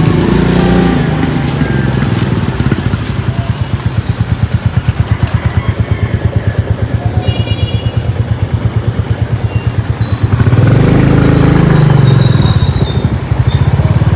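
Motorcycle engine running with a rapid, even putter. About ten seconds in it grows louder and rises in pitch as the bike accelerates.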